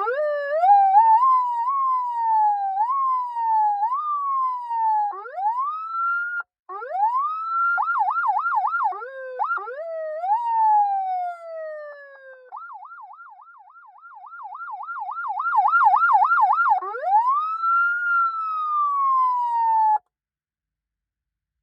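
Electronic siren sound module cycling through its tones. First come stepped rising-and-falling sweeps, then quick rising whoops. A fast warbling yelp fades and swells again, and a slow wail rises and falls before cutting off suddenly near the end.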